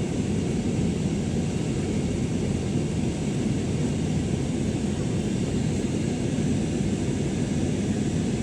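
Steady cabin noise of an Airbus A321 with IAE V2500 engines: an even low rumble of engines and airflow, with no change in level.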